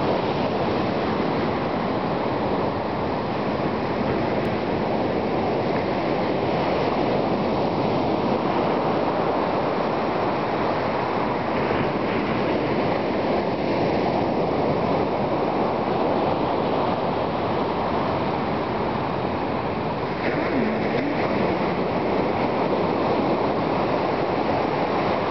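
Ocean surf breaking on a sand beach, heard as a continuous, even rush of noise with no single wave standing out.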